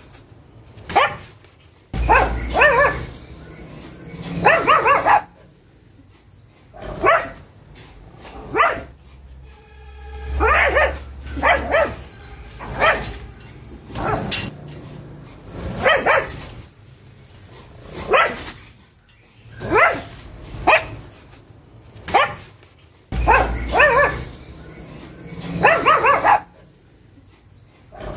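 Pug barking repeatedly, short barks about once a second with some in quick pairs.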